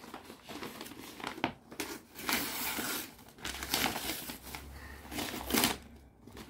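Gift wrapping paper being torn off a box and crumpled: irregular ripping and rustling, the loudest rip shortly before the end.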